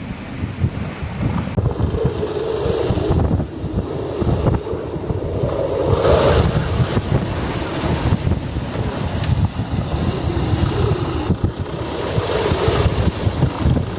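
Hurricane-force wind in a hurricane's inner eyewall, rushing and buffeting the microphone in gusts, with a wavering howl that rises and falls.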